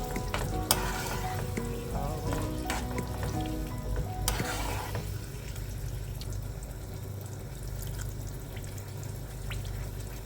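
Food sizzling in a frying pan while it is stirred, with a utensil clicking and scraping against the pan during the first half; the sizzle carries on more quietly after that.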